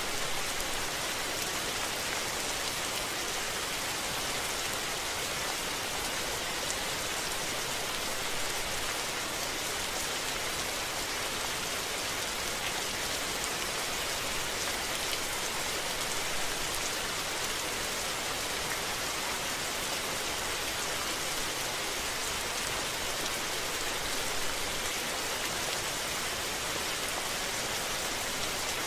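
Steady rain falling, an even hiss with fine scattered drop ticks and no thunder.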